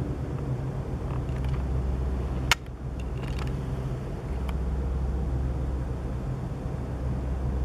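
A steady, deep droning hum, the unexplained night-time noise. There is a sharp click about two and a half seconds in, after which the deepest part of the hum drops away briefly and returns about four seconds in.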